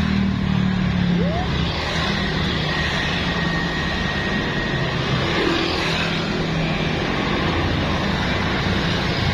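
Steady rumble of heavy road traffic, the engine of a large vehicle such as a bus running close by, with a faint thin high tone for a few seconds early in the middle; no horn is sounding.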